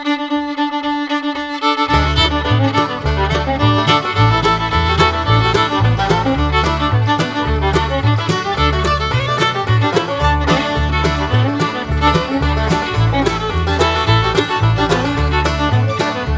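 Instrumental bluegrass-style background music with a fiddle lead; the bass and rhythm come in about two seconds in.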